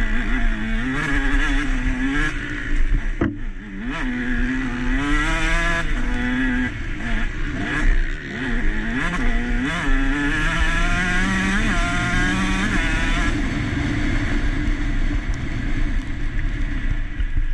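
KTM SX 150 two-stroke single-cylinder motocross engine, heard from on board, revving up and dropping back again and again as the bike is ridden hard around the track, over a steady rush of noise. A sharp knock comes about three seconds in.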